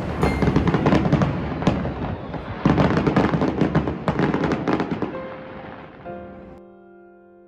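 Aerial fireworks bursting and crackling in a dense run of bangs, with a loud burst about two and a half seconds in. The fireworks fade out about six seconds in as soft piano music begins.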